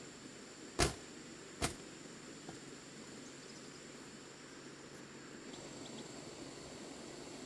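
Two sharp wooden knocks, a little under a second apart, as a woven bamboo door is pulled shut against its frame. Behind them runs a steady high insect drone.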